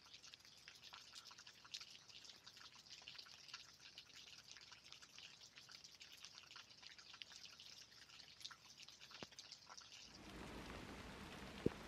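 Faint light rain: scattered raindrops ticking irregularly over a soft hiss. About ten seconds in, the background turns into a louder, fuller noise, and one sharp click comes just before the end.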